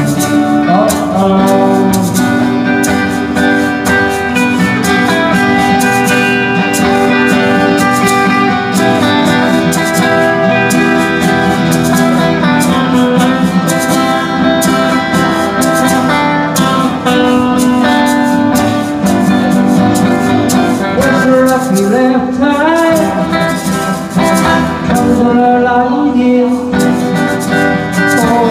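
Live band playing a 1960s pop song, led by guitars, loud and continuous.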